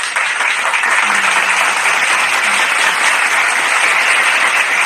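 Applause sound effect: a crowd clapping, a dense steady patter with no break.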